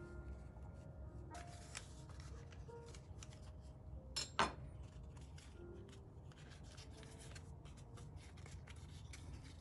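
Fluted paper baking cup crinkling and rustling as a round of tart dough is pressed into it by hand, with many small irregular crackles and one sharper crackle about four seconds in. Faint background music fades out about a second in.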